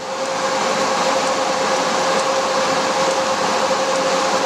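Cooling fans of a 2 kW FM broadcast transmitter running: a steady rush of air with a faint steady hum tone in it.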